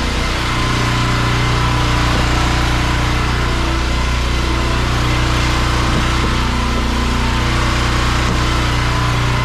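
An engine running at a steady speed, a constant drone that gets a little louder about half a second in.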